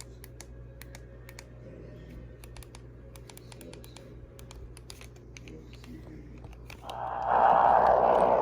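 Computer keyboard typing: scattered, irregular key clicks over a low steady hum. About seven seconds in, a loud hiss of radio static starts.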